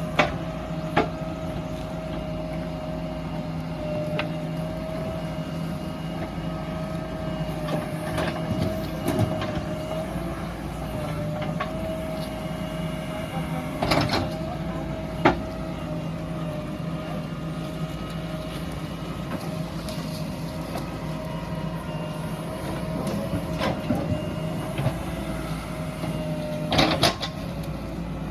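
Diesel engines of backhoe loaders and dump trucks running steadily, with a wavering whine and a few sharp knocks at intervals.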